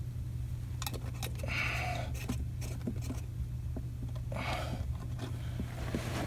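Scattered light clicks and two soft rustling swishes from hands handling plastic drain pipe fittings, over a steady low hum.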